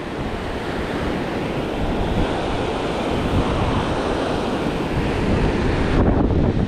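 Ocean surf breaking and washing over a rocky shoreline in a steady wash, with wind rumbling on the microphone, a little stronger near the end.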